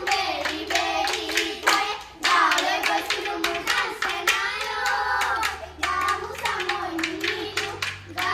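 Voices singing a long, gliding melody with steady, regular hand-clapping in time.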